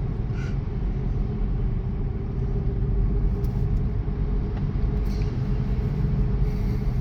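Steady low road and tyre rumble of a Tesla driving, heard from inside the cabin, with a faint steady hum over it.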